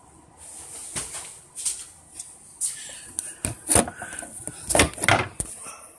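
Handling noise from the recording phone being picked up and moved: a string of irregular knocks, bumps and rustles, thickest in the second half.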